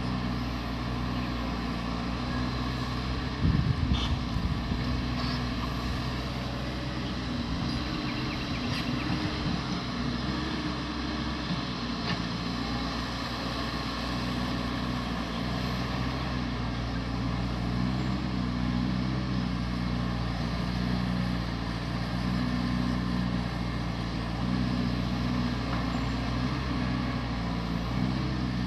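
Caterpillar 320D hydraulic excavator's six-cylinder diesel engine running steadily as the machine digs and swings, its pitch shifting slightly with the load. A short burst of low thumps comes about four seconds in.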